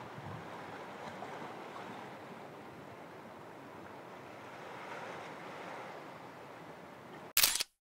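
Sea waves washing against a rocky shore, a steady rush that swells gently twice. Near the end a short, loud burst cuts in, then the sound stops dead.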